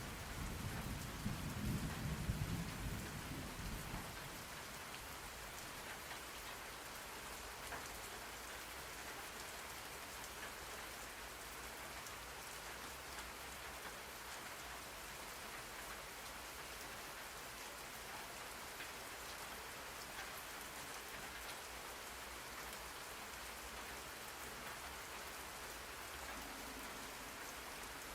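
Steady rain falling, heard as an even hiss. A low rumble of thunder fades out about four seconds in.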